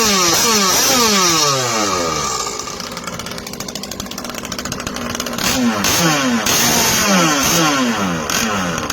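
Two-cylinder two-stroke engine of a radio-controlled long-tail boat running hard in repeated bursts of throttle, the pitch falling after each one. It dies down for a couple of seconds in the middle and comes back loud about five and a half seconds in.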